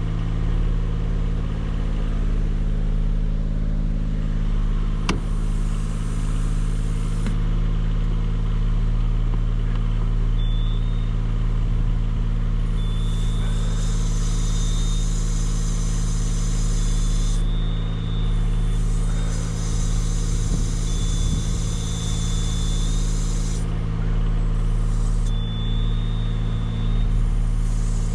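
A motor vehicle's engine idling steadily, with faint short high beeps every couple of seconds in the second half.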